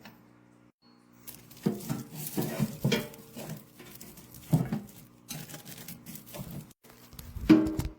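Irregular clunks and rattles of metal heater parts being handled and unpacked, the loudest about seven and a half seconds in.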